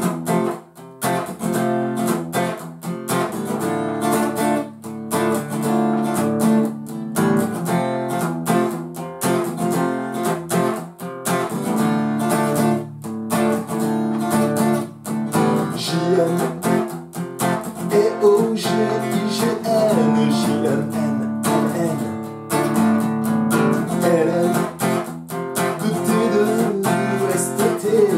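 Acoustic guitar strummed in a steady, even rhythm of chords.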